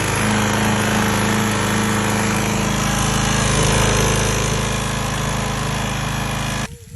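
Pressure washer's small gasoline engine running loud and steady, then cutting off abruptly near the end.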